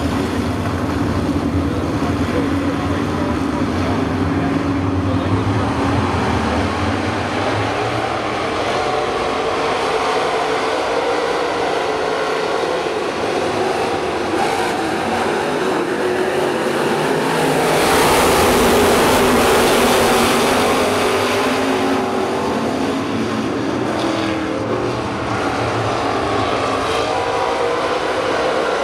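A field of dirt-track race cars running at speed around the oval, engines steady and overlapping, swelling loudest about eighteen to twenty-one seconds in as cars pass.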